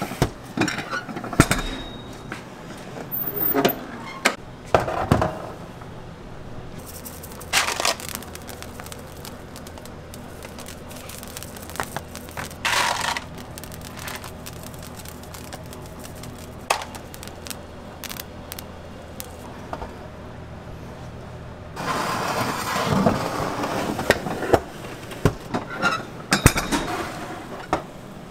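Bakery kitchen work sounds: scattered knocks and clicks of a metal baking tray and a stainless oven over a steady machine hum, with a louder stretch of scraping and clatter near the end as the tray is handled.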